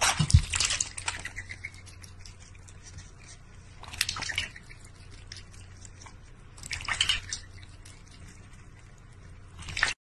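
Water splashing and dripping in a large stainless-steel bowl as a cat paws at it, in short bursts at the start, about four seconds in, around seven seconds and just before the end.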